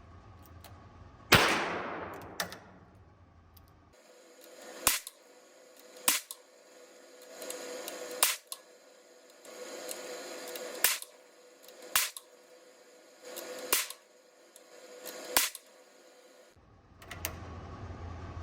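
.22LR gunshots. About a second in comes a single loud shot with a long fading ring, the loudest sound here. From about four seconds on follow seven sharper, shorter cracks, one every one to two and a half seconds.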